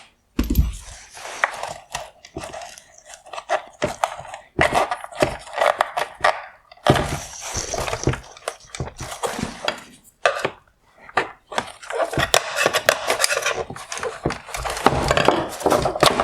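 Plastic parts of a car headlight housing being handled and worked apart by hand, with irregular clicks, knocks and short scrapes of plastic on plastic.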